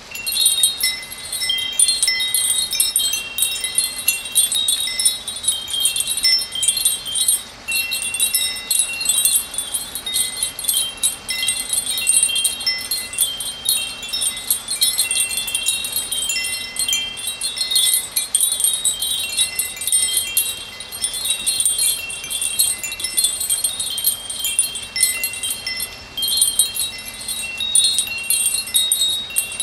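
Chimes ringing continuously: a random cascade of many overlapping high, bell-like tones, with a steady hiss behind them.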